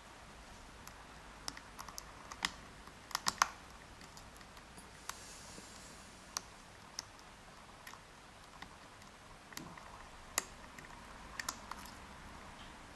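Small, sharp clicks and ticks of a lock pick working the pin stack of a Yale Platinum euro cylinder under heavy tension. They come irregularly, with a quick cluster of louder clicks about three seconds in and another sharp one past ten seconds.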